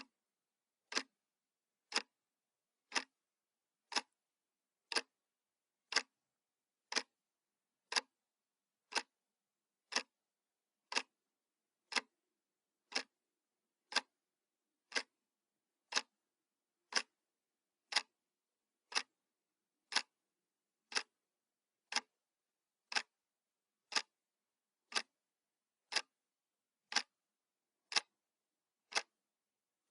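Clock ticking sound effect: one sharp, even tick every second, counting off the seconds of a countdown timer.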